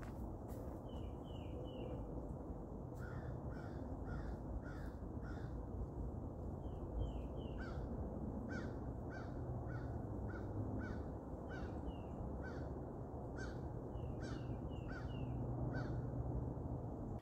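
Birds calling in woodland: a long run of short, repeated calls, about two a second, over a steady low background noise.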